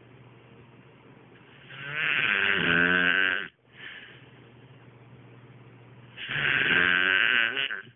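A man snoring heavily in his sleep after a night of drinking beer: two loud snores about four seconds apart, each lasting under two seconds, with quieter breathing between them.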